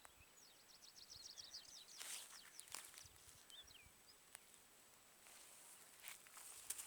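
Faint small-bird song: a quick trill of about a dozen high notes about half a second in, then a few short chirps around the middle, with a few soft rustles.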